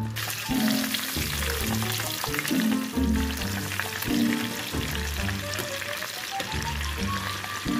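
Breaded chicken strips deep-frying in hot vegetable oil: a dense, steady crackling sizzle. Background music with a steady beat plays underneath.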